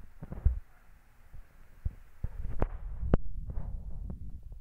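Handling noise close to a phone's microphone: irregular soft knocks and clicks of fingers and a paper-and-card model bumping against the phone, with a low rumble for a second or two after the middle as the phone is moved.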